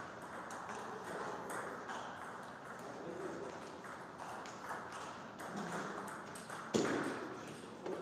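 Table tennis ball ticking back and forth between the rackets and the table in a rally, with one louder hit about two-thirds of the way through.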